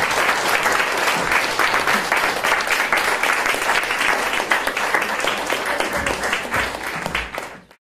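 Audience applauding steadily after a talk ends, a dense patter of many hands clapping, cut off abruptly near the end.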